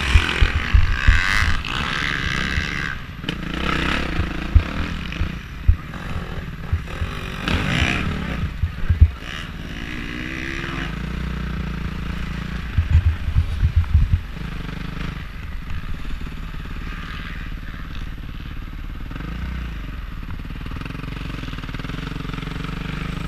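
Suzuki RM-Z450's single-cylinder four-stroke engine on a motocross bike, running unevenly with sharp loud peaks over the first nine seconds or so. From about nine seconds on it settles to a steady, lower running sound as the bike rolls slowly at low revs.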